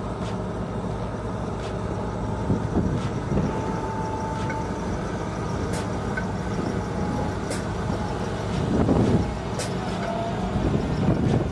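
Military armored truck towing a trailer, its diesel engine running as it drives over rough ground toward the listener, getting louder as it comes close about nine seconds in.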